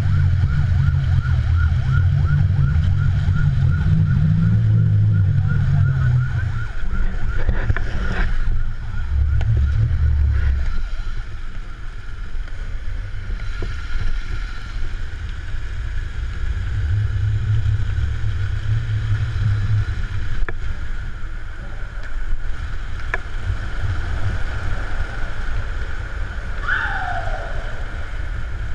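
Skateboard wheels rolling fast over asphalt: a continuous low rumble with wind buffeting the microphone, picked up close to the ground. The rumble is heaviest in the first ten seconds and eases after that, and near the end a short high-pitched sound falls quickly in pitch.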